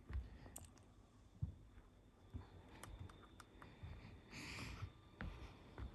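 Faint scattered clicks and taps, then one short breathy hiss lasting about half a second, about four and a half seconds in: the begging hiss of a young owl.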